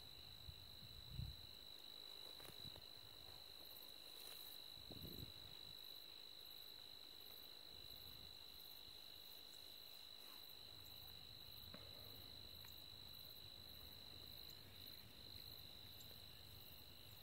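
Near silence with a faint, steady, high insect trill. Two soft low thumps come about one second and five seconds in.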